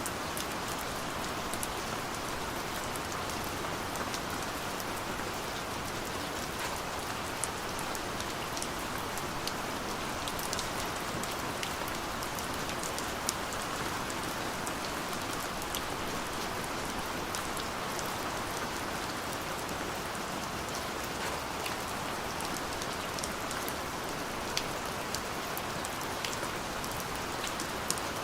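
Steady light rain falling, a constant hiss with many small drops pattering and ticking on a surface.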